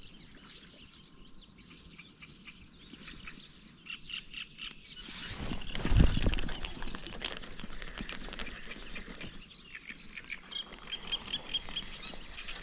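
Birds chirping faintly, then a carp rod's electronic bite alarm starts a steady high tone about five seconds in as a fish takes the bait and runs, with a loud burst of rustling and handling noise just after.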